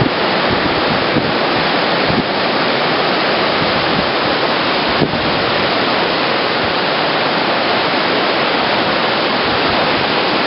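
Nass River in flood rushing steadily, its churning boils and whirlpools making a loud, even rush of water.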